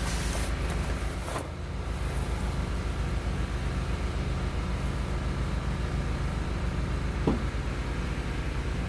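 Steady low rumble of an engine running, most likely machinery from building work next door. About seven seconds in, a short falling squeak-like tone sounds once.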